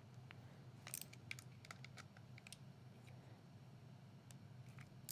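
Faint, scattered small clicks of a torque driver and its bit working the red dot optic's mounting screws on the pistol slide, tightening them to 10 inch-pounds, over a low room hum.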